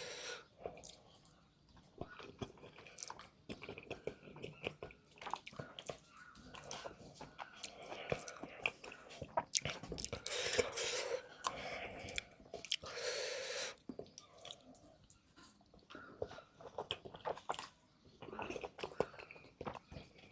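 Close-miked chewing and biting of food from a curry-and-rice meal: many small wet mouth clicks and smacks, with louder, noisier bites about ten and thirteen seconds in.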